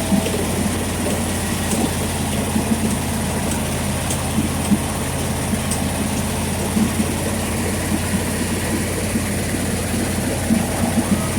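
Heavy diesel engine of a concrete mixer truck running steadily during loading at a batching plant.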